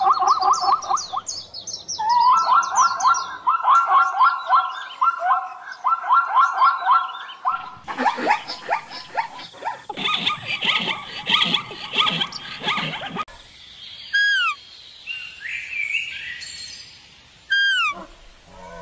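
Zebra calling: fast runs of high, yelping barks, then a harsher, noisier stretch of calls from about eight seconds in. Near the end, two short high whistles, each falling in pitch.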